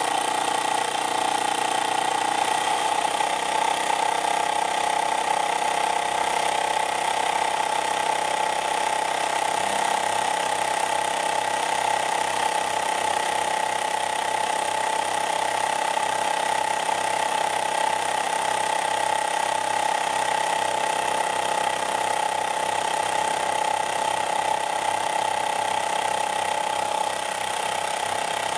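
Bowman Pioneer model marine steam engine running steadily under steam, giving a constant high-pitched whine with a fast, even beat underneath that comes in about a third of the way through.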